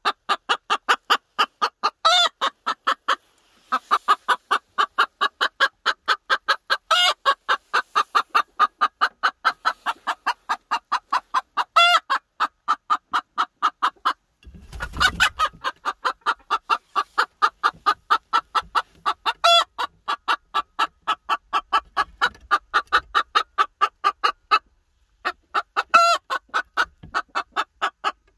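Silkie bantam hen clucking rapidly and steadily, about five clucks a second, with a louder drawn-out squawk breaking in every five seconds or so. There is a brief rustle about halfway through.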